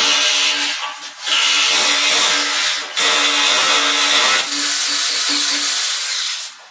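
Electric power drill running in four bursts of about one and a half to two seconds each, with short pauses between, and stopping near the end.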